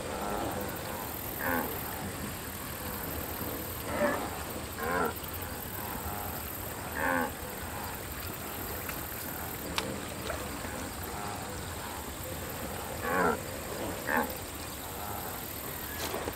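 Short grunting calls from cartoon wildebeest, about six spread through, each under half a second, over a steady background hiss.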